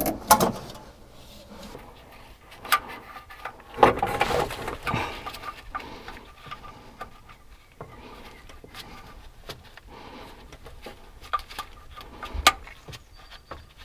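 Scattered clicks, knocks and rustling of hands working on small car parts, with a louder knock and rustle about four seconds in and a sharp click near the end.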